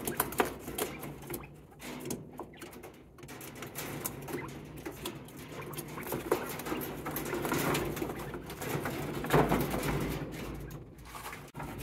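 Quail pecking and shuffling about a wire-floored cage as they eat larvae: a scatter of light taps and scratches with soft low bird calls, and a duller bump about nine seconds in.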